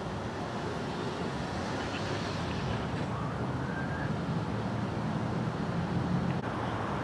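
Steady low rumble of idling vehicle engines, with street traffic noise behind it.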